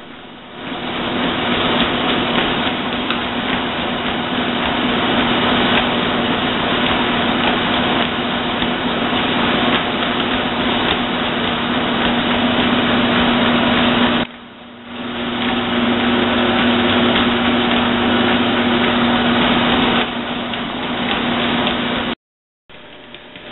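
Motorized treadmill running: a steady motor hum over the whirr of the moving belt. The sound dips briefly a little past halfway, then comes back.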